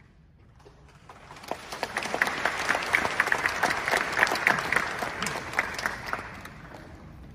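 Audience applauding: clapping starts about a second in, builds quickly, holds, then dies away near the end.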